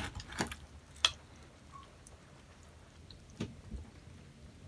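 Dalstrong chef's knife cutting along the backbone of a raw whole chicken on a plastic cutting board: a few short, sharp clicks as the blade goes through the bones beside the spine, the clearest about a second in and about three and a half seconds in.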